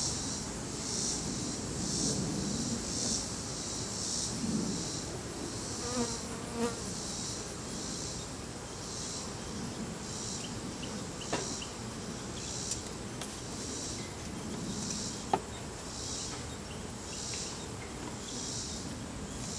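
Russian honey bees buzzing around an open hive, swelling and fading, while a high-pitched insect call pulses about once a second in the background. A few sharp clicks and taps from the hive frames and tools come through, the loudest about two thirds of the way in.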